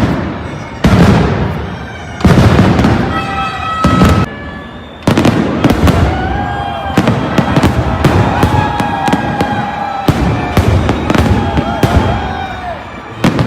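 Fireworks going off: four big booms in the first five seconds, each dying away, then a rapid run of crackling bursts for the rest of the time.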